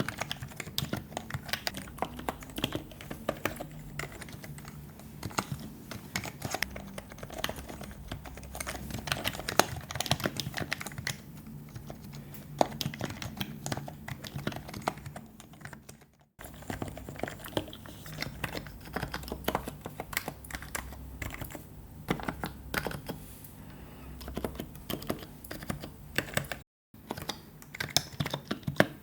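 Continuous typing on a Happy Hacking Keyboard with Topre rubber-dome switches, a dense run of keystrokes. It breaks off twice in brief dead-silent gaps, about 16 and 27 seconds in.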